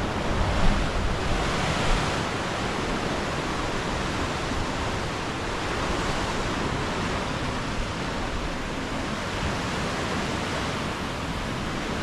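Ocean surf breaking and churning against rocky cliffs in a narrow cove below, a steady rushing wash of white water. Wind rumbles on the microphone during the first couple of seconds.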